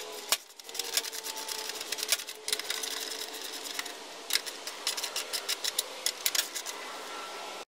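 Ratchet clicking in quick runs, with light metal clinks of socket and bolts, as the recoil starter cover bolts of a small engine are tightened; a faint steady hum lies underneath. The sound cuts off suddenly near the end.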